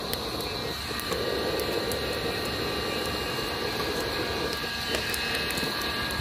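Hollow log burning hard: a steady rush of flame with scattered sharp crackles and pops from the wood. The rush is strongest from about a second in until near the end.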